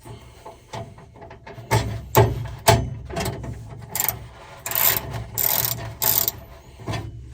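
Socket ratchet clicking in short, irregular bursts as an 11 mm socket is worked on the nut holding a tool chest drawer lock, with sharp metal clicks and knocks in between.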